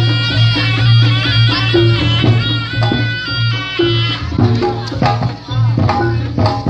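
Reog Ponorogo ensemble music: a shrill slompret reed pipe playing a melody over a steady low gong drone and hand drums. About four seconds in the pipe drops out and drum strokes take over.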